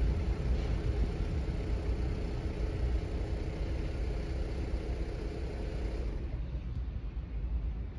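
Low vehicle rumble that slowly dies away, with a faint steady hum that fades out about six seconds in.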